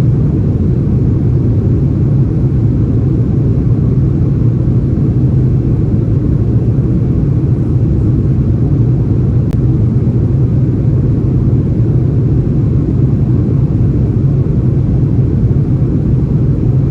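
Steady, loud low rumble of airliner cabin noise inside an Airbus A330-343 in flight, the engine and airflow noise unchanging throughout, with a single faint click about midway.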